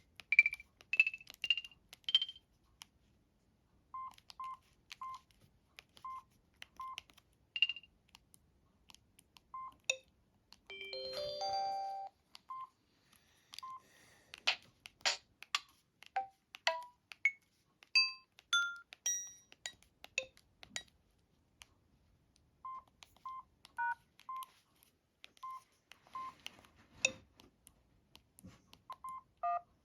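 Samsung SGH-D500 mobile phone's electronic system sounds: a rising run of short beeps at the start, then many single beeps on one pitch at uneven intervals, broken by a few brief melodic alert jingles.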